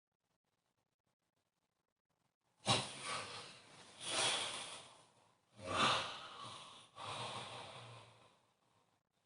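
A person snoring loudly. After a couple of seconds of quiet come two long, rough snoring breaths, each starting abruptly.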